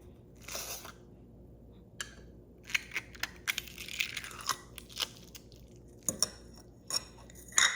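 Hands squishing and pulling slime, giving sticky, crackly pops and sharp clicks in irregular bursts, thickest a few seconds in, with single pops near the end.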